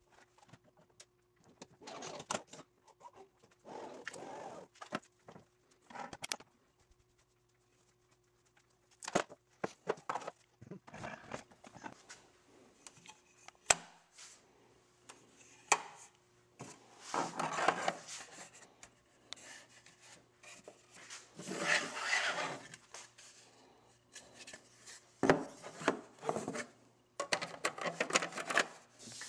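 Black plastic covers being handled and fitted onto a CNC router's gantry: scattered clicks and knocks with several longer rubbing scrapes of plastic against the frame, over a faint steady hum.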